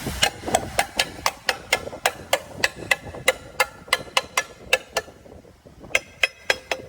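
A hammer striking metal machine parts during disassembly of a copper granulator's blade assembly, about three to four ringing blows a second for about five seconds. After a short pause a few more blows follow.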